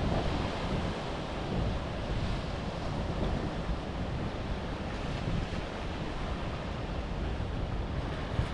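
Waves breaking and washing over a rocky shoreline, under steady wind noise on the microphone.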